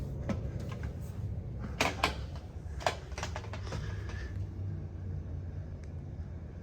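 Scattered light knocks and clicks, a few close together about two and three seconds in, over a steady low hum: someone moving into a travel trailer and handling its door and fittings.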